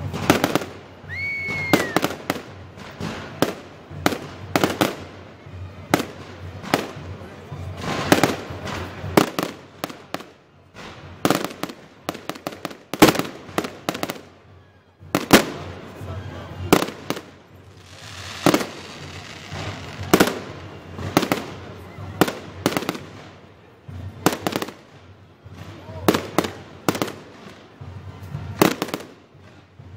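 Fireworks display: a rapid, irregular run of bangs and pops from bursting aerial shells, with a short whistle that rises and falls about a second in and a spell of crackling near the middle.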